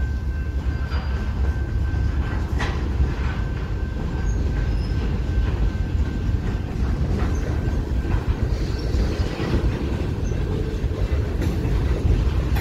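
Freight train cars (covered hoppers, then boxcars) rolling past on the track: a steady low rumble of wheels on rail with a few sharp clicks over the rail joints, and a thin steady wheel squeal during the first few seconds.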